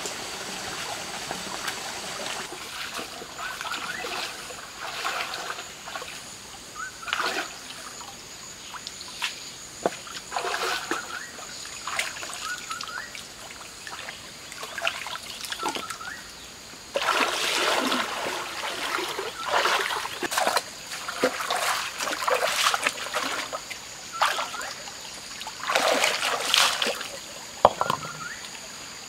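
Shallow stream water splashing and sloshing in irregular bursts as a person wades and works with his hands in it, over the steady trickle of the stream. The splashes come thickest in the second half.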